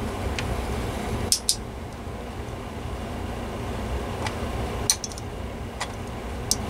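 Windmere DF-7 7-inch oscillating fan running with a steady low motor hum and airflow noise. A few sharp, light clicks come at irregular moments over it.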